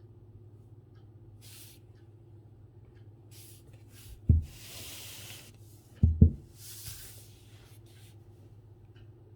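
Calligraphy brush stroking across paper: several short rubbing strokes and one longer one about four and a half seconds in. A dull thump comes just after four seconds, and two quick knocks just after six.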